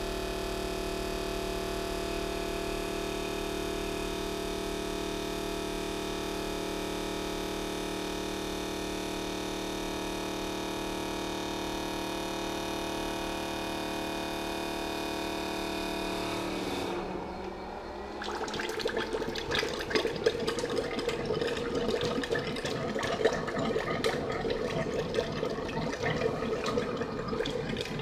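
Cordless battery-powered transfer pump running steadily with a constant whine as it pushes engine oil through the nozzle into a funnel. About seventeen seconds in, the whine breaks off. After a brief dip it gives way to irregular gurgling and spluttering of oil flow.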